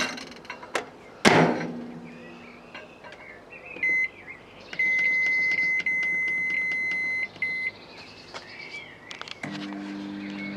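Microwave oven being set: control-panel clicks, then a short beep, a long held beep and another short beep. About a second before the end the oven switches on with a steady low hum; the owner thinks its high-voltage transformer is damaged.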